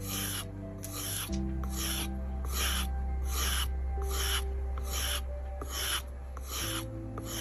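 Steel knife blade being stroked back and forth across a coarse diamond sharpening plate, an even rasping scrape about one and a half strokes a second, grinding a new edge and shape onto the old blade.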